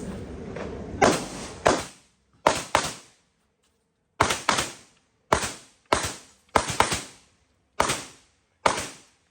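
Competition handgun shots fired on an IPSC stage: about a dozen sharp, loud shots, most of them in quick pairs (double taps), with short pauses between the pairs as the shooter moves from target to target.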